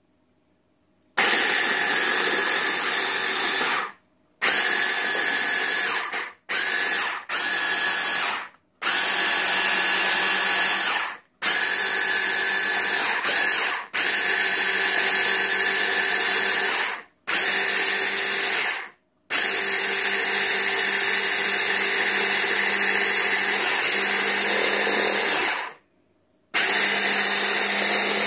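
A 600-watt hand blender's motor drives its chopper bowl attachment, puréeing sliced bananas. It is run in about ten pulses lasting from under a second to about six seconds, with short silent stops between. Each pulse holds an even pitch.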